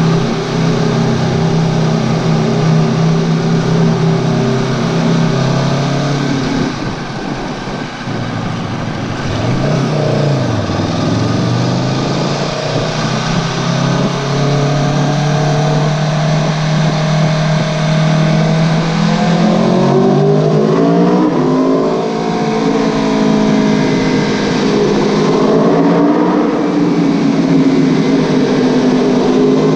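Aprilia Tuono V4 1100 Factory's V4 engine through an Akrapovic exhaust, heard from on board while riding. It holds steady revs at first and drops off about seven seconds in. Then it dips and climbs again, and through the second half the revs rise and fall repeatedly.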